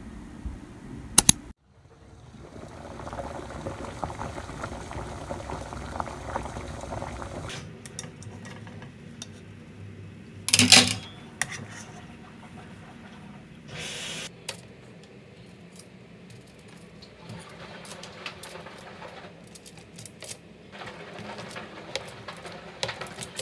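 Cooking sounds: potatoes boiling in a pot of bubbling water, a clatter about ten seconds in as they are lifted out with a metal skimmer, then scattered light clicks and crinkles as the boiled potatoes are pressed flat with a glass on a foil-lined baking tray.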